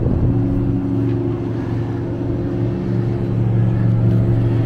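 Steady low mechanical hum at a constant pitch, as from an engine or machinery running.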